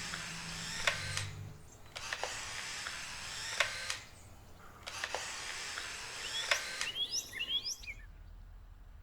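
Polaroid instant camera taking pictures: three times, a shutter click and the motor whirring for about two seconds as it ejects the print. A few bird chirps come in near the end.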